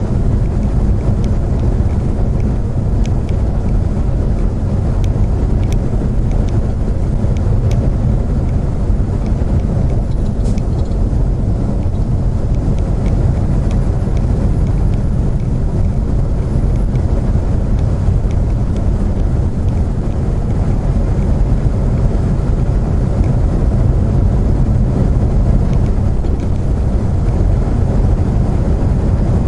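Steady low rumble of a vehicle driving at highway speed, engine and road noise heard from inside the cab.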